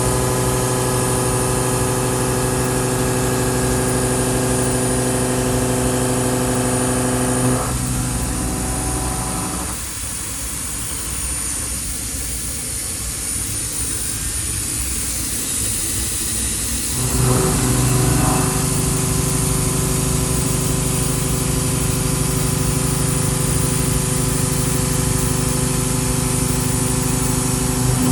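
CNC milling machine face milling: the cutter gives a steady, loud pitched whine made of several even tones. The tone drops out about eight seconds in, leaving a quieter hiss for several seconds, then the cut resumes about seventeen seconds in and holds steady. A thin high whine runs underneath throughout.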